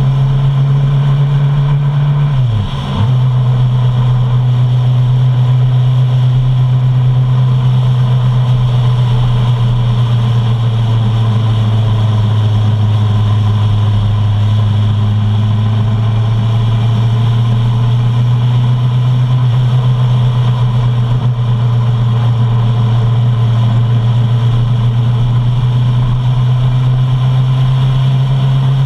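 Suzuki Bandit 650's inline-four engine running at a steady cruise under wind and road noise while the motorcycle is ridden. About three seconds in, the engine note briefly dips in pitch and level, then picks up again.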